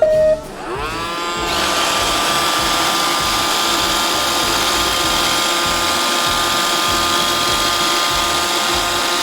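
Roomba robot vacuum's motors spinning up, running steadily with a whirring whine, and winding down near the end: the reassembled robot running after cleaning.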